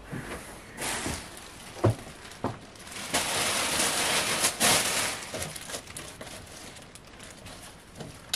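Rustling and handling while a baby car seat is searched for a hidden gift. There are a few light knocks in the first two seconds and a steadier rustle of about two seconds around the middle.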